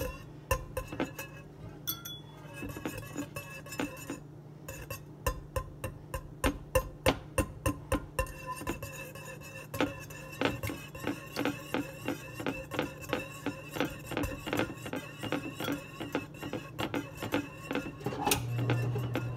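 Wire whisk beating raw eggs in a bowl: a fast, even run of clinks as the wires strike the bowl's side, about three to four a second.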